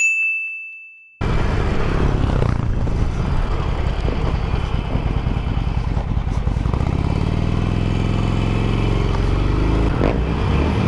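A single bright chime rings and fades over about a second. Then a Harley-Davidson Sportster 883's air-cooled V-twin engine runs steadily as the motorcycle is ridden, its pitch shifting in the last few seconds.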